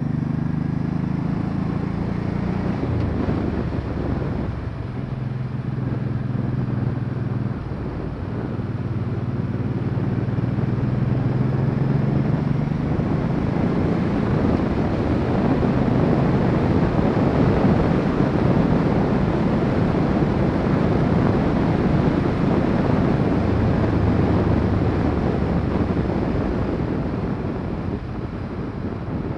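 Honda Shadow VT700C's V-twin engine running on the road, its note shifting a few times in the first several seconds, under wind rushing over the camera microphone that swells as speed builds from about a dozen seconds in and eases near the end.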